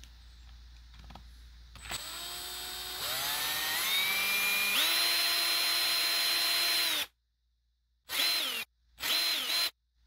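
Electric drill with a 0.6 mm bit drilling into the end of a wooden shish kebab skewer. About two seconds in the motor starts and its whine rises in steps to full speed, then runs steady and stops abruptly. Two short bursts follow near the end.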